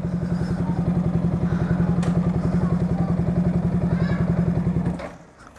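Yamaha R15 V3's 155 cc single-cylinder engine idling with steady, even pulses, then switched off about five seconds in and cutting out abruptly. No radiator fan is running, which the owner takes as the sign that the oversized BPro racing radiator keeps the engine cool.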